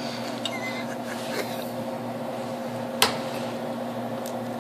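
Presto Pizzazz rotating pizza oven running with a steady electric hum from its turntable motor and heater. Eggs frying on the hot tray give a few light pops, with one sharp click about three seconds in.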